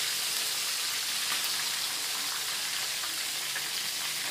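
Hot oil sizzling steadily around breaded chicken cordon bleu deep-frying in a pan, with a few faint clicks.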